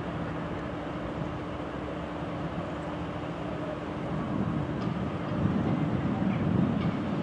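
ET22 electric locomotive hauling a double-deck passenger train as it rolls in slowly toward the platform: a steady hum over the rumble of wheels on the track, growing louder in the second half as it comes closer.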